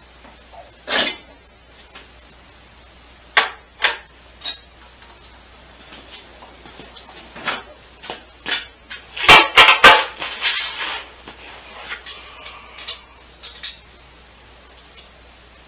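Metal hand tools clanking and clattering as they are handled: a few separate sharp clanks, then a quick run of them about nine to ten seconds in with a short rattle after, and lighter clinks near the end.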